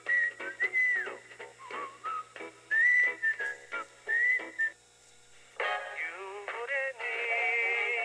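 Old TV program audio played through a small FM radio: a whistled tune over a plucked, rhythmic accompaniment breaks off just under five seconds in. After a short quiet gap, music with a sung jingle begins.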